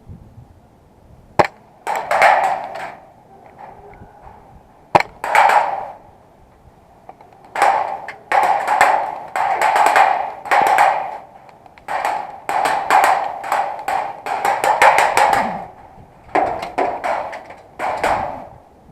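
Two sharp single shots from a gas blowback M4 airsoft rifle, about three and a half seconds apart, followed by a long run of short, rough scuffing noises in quick succession.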